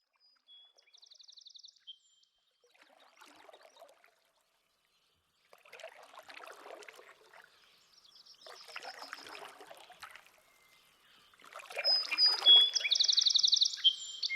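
A bird's high, fast trill about a second in and again, louder, near the end, between several separate bouts of splashing, trickling water two to three seconds apart, the last bout the loudest.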